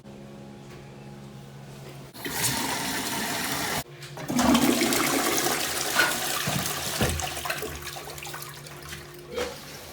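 Toilet flushing: a rush of water starts about two seconds in, breaks off briefly, then surges loudest and tapers off near the end.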